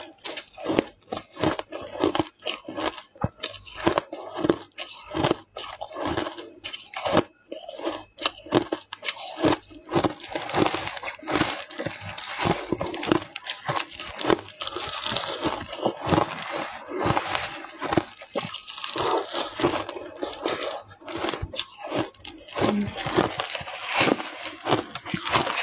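Ice coated in matcha powder being bitten and chewed: a rapid run of crisp crunches, growing denser about ten seconds in.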